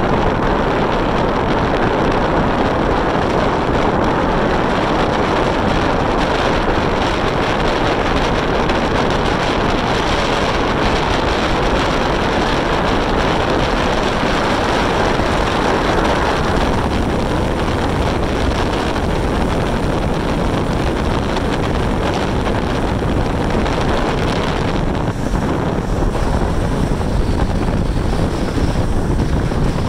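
Steady wind buffeting the microphone over the road noise of a moving car. The higher hiss thins out a little past halfway.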